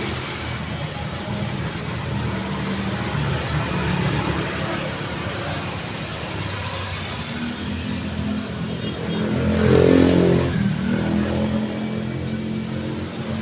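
Road traffic running steadily. About ten seconds in, one vehicle's engine swells loud as it passes close, then fades.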